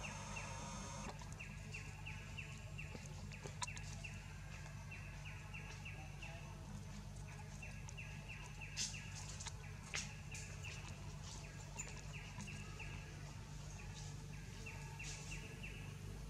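Outdoor forest ambience: rapid high-pitched chirping, about four chirps a second, coming in repeated runs over a steady low hum, with a few faint clicks.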